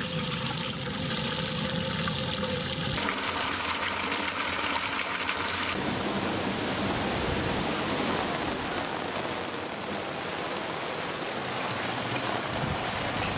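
Rainwater pouring and splashing steadily through a mosquito-mesh filter into a collection drum, the inflow of a rooftop rainwater-harvesting system. The rushing changes character abruptly about three seconds in and again about six seconds in.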